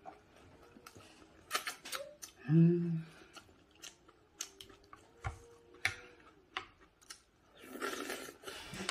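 Eating sounds at a table: a spoon and chopsticks clicking against dishes and a stone pot, with chewing. About two and a half seconds in comes a brief hummed "mm", the loudest sound, and near the end a longer hiss as a spoonful of hot stew is slurped.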